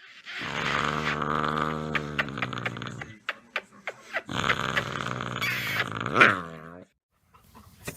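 A dog giving two long, drawn-out growling vocalizations with a short break between them. The second bends in pitch near its end.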